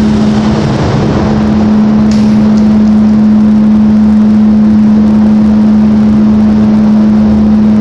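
A loud, steady machine drone: one unchanging hum under a rushing hiss that comes up at the very start and holds steady.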